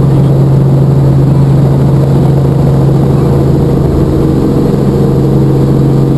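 Helicopter engine and rotor running steadily, heard from inside the cabin: a loud, even drone with a strong low hum.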